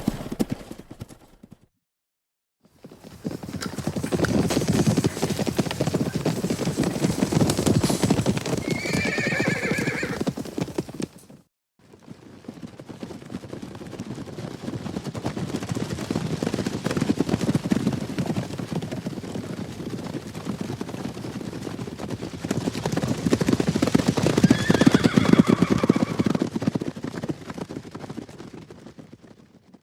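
A group of horses galloping, with thick drumming hoofbeats, heard in separate recordings with short silent gaps between them. A horse whinnies in each run: about nine seconds in and again about twenty-five seconds in. The second gallop swells and then fades out near the end.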